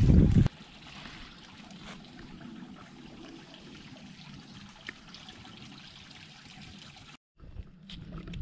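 Small woodland stream trickling steadily, after a brief low rumble at the very start. Near the end, footsteps crunch through dry leaves.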